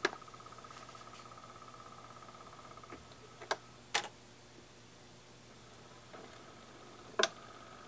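Technics SL-QD33 automatic direct-drive turntable starting up. A click as the start button is pressed is followed by a faint steady whine from its mechanism as the platter spins up. A few sharp clicks from the automatic tonearm mechanism come in the middle and near the end, the last one the loudest.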